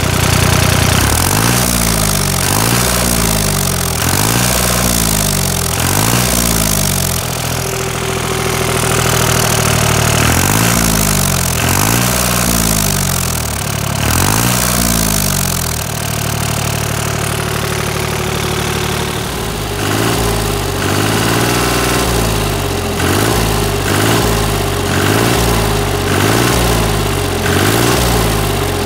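Goldoni 240 Universal tractor's diesel engine running after standing unused for a long time, heard close to its exhaust pipe. Its speed rises and falls over and over, about once a second, with a couple of steadier stretches, and the swings come more regularly near the end.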